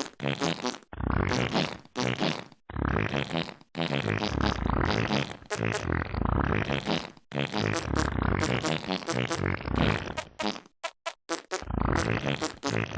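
Fart sound samples pitched and sequenced into a song melody, a novelty musical cover. The phrases are broken by short gaps, with a run of short stabs shortly before the last phrase.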